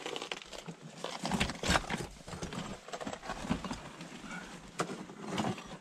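Footsteps on the rocky floor of a mine tunnel: irregular steps and scuffs at a walking pace.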